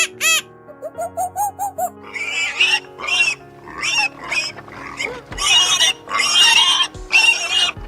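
A pig squealing repeatedly in short, shrill squeals from about two seconds in, after a quick run of high chirping squeaks at the start. Background music plays under it.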